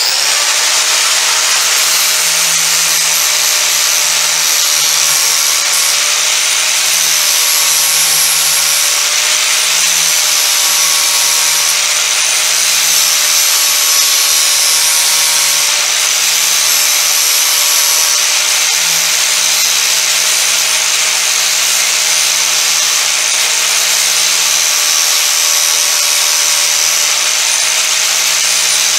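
Angle grinder fitted with a sanding disc, running steadily with a high whine as the disc sands the coped end of a piece of wood trim to a back angle.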